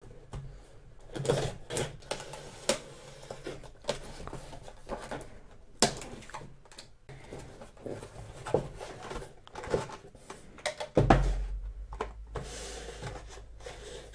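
Irregular clicks, taps and knocks of small hard objects being handled. There is a louder bump about eleven seconds in, followed by a steady low hum.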